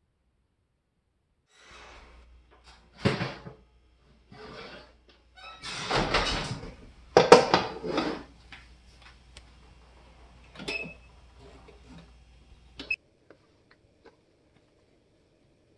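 Kitchen handling noise: a metal sheet pan with a wire rack being moved, and an oven door opening and shutting, in a series of clunks, knocks and sliding scrapes over a low hum. The loudest clatter comes about six to eight seconds in, and it goes quiet after about thirteen seconds.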